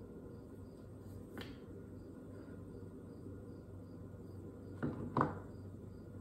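Faint cricket chirping about twice a second over a low steady hum, with a light click about a second in and two sharp knocks near the end.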